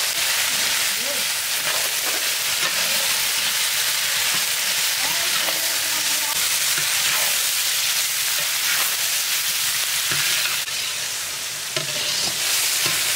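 Freshly added sliced onions sizzling in hot oil in a large metal wok, with a metal spatula stirring them and scraping the pan. The frying hiss is loud and steady throughout.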